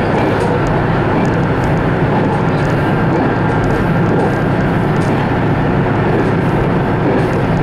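Ise III-type diesel railcar running at speed, heard from inside the car: a steady engine drone mixed with wheel and rail noise.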